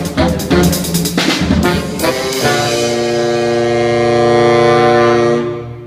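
Brass music with drums: punchy rhythmic hits, then, about two and a half seconds in, a long held final chord that fades out near the end.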